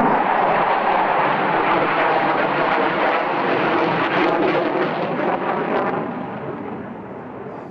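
Jet noise from a Panavia Tornado GR4 and its twin Turbo-Union RB199 turbofans during a display pass: a loud, crackling jet rumble that fades over the last two seconds as the aircraft draws away.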